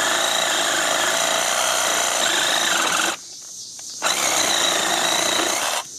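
Cordless oscillating multi-tool running at a new speed setting and cutting; it stops about three seconds in and starts again a second later.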